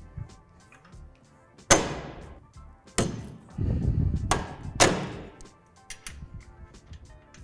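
Steel basketball-pole tube and extension arms knocking together as they are fitted: four sharp clanks that ring briefly, the last two close together, with a low rumble of the parts shifting between them. Light background music plays throughout.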